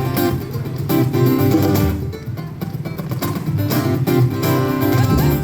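Live band playing an instrumental passage between sung verses, led by strummed acoustic guitar with a steady rhythm.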